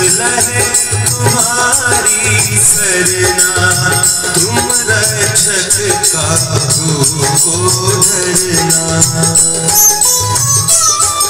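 Indian devotional-style song: a wavering sung melody over a steady drum beat, with continuous jingling percussion.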